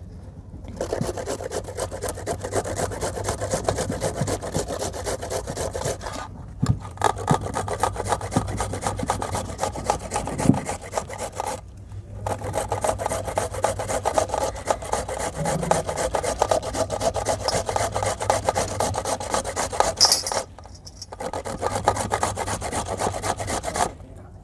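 Carrots being grated by hand on a flat metal grater over a steel bowl: fast, repeated rasping strokes, with a few brief pauses.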